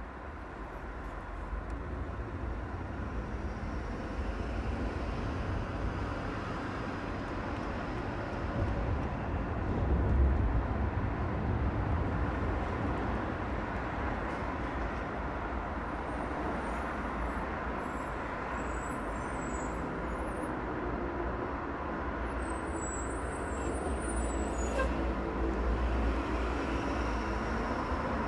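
City driving sound: a steady low rumble of car and tyre noise on the road, with other traffic around. It swells briefly about ten seconds in.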